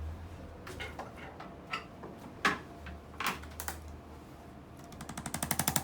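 A few scattered light clicks and pops during a chiropractic treatment, the sharpest about halfway through. Near the end a powered percussion device starts up: a rapid, even pulsing at about nine beats a second that grows louder.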